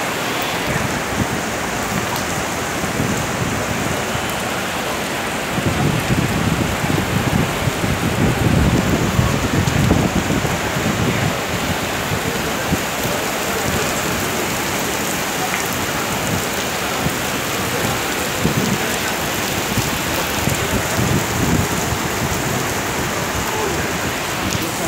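Steady rain falling and splashing on surfaces, a continuous hiss with a louder, low-pitched stretch from about six to eleven seconds in.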